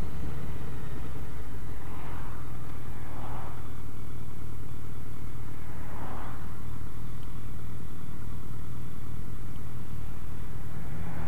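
Motorcycle engine running steadily at cruising speed, with rushing wind and road noise on a helmet-mounted microphone. A car swishes past about six seconds in.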